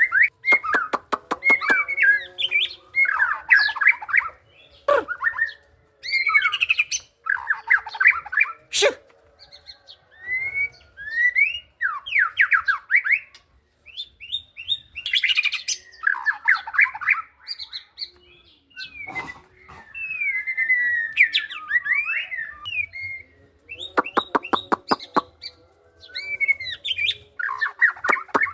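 White-rumped shama (murai batu) singing: a varied song of whistled glides, trills and runs of rapid repeated ticking notes, delivered in phrases separated by short pauses.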